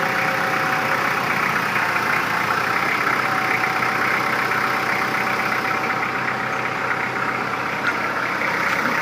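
Kubota L4240HST-3 tractor's diesel engine running steadily at idle, with a faint steady whine from the hydraulics.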